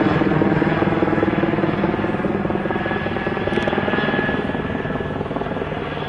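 Helicopter flying overhead and away, its rotor chop steady and slowly fading as it recedes.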